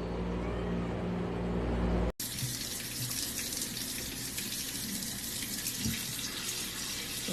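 A steady low hum, then after a sudden cut about two seconds in, water running steadily from a tap.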